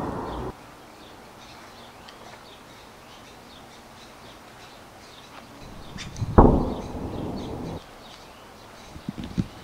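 Faint birdsong in the background, broken about six and a half seconds in by a loud sharp knock followed by a second and a half of dull, low rumbling noise that cuts off abruptly; a few soft thumps near the end.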